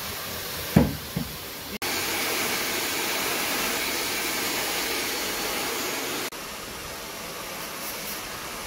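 Handheld hair dryer blowing steadily on hair: a steady rushing hiss that gets louder about two seconds in and drops back abruptly about six seconds in. A single sharp knock about a second in.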